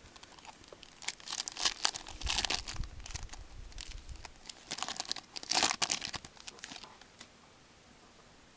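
Trading card pack wrapper being torn open and crinkled by hand, a run of irregular crinkling and tearing noises from about a second in until about seven seconds, then stopping.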